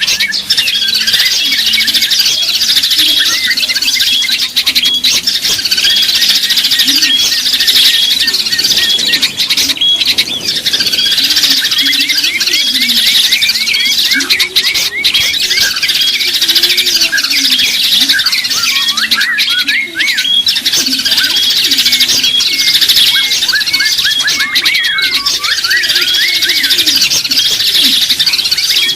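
Many small songbirds chirping and calling at once, a dense, continuous chorus of quick high chirps and short rising and falling notes, with some lower wavering notes underneath.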